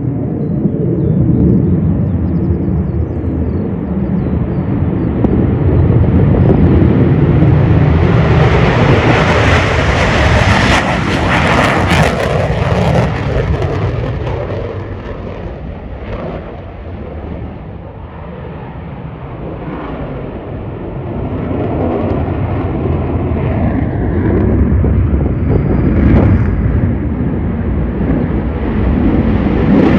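F-22 Raptor's twin Pratt & Whitney F119 turbofans at takeoff power during lift-off and climb-out: loud jet noise, a deep rumble with a high hiss. It swells in the first third, eases about two-thirds of the way through, then builds again near the end.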